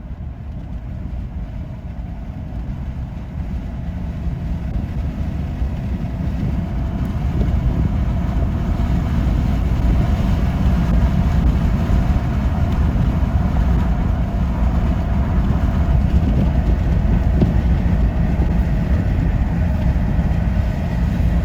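Vehicle road and engine noise, a heavy low rumble that grows louder over the first several seconds as it gathers speed, then holds steady.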